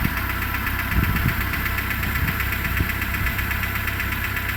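Renault Logan engine idling during warm-up from a cold start, with a fast rustling, chattering knock over the steady running, somewhere between a knock and a rustle. The noise comes on some minutes after a cold start and fades as the engine warms; its cause is unknown to the owner.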